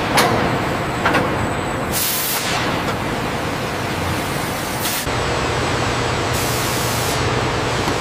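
Production-line machinery noise: a steady hum and hiss, with two sharp clicks near the start and short bursts of hiss about two and five seconds in, after which a low hum grows stronger.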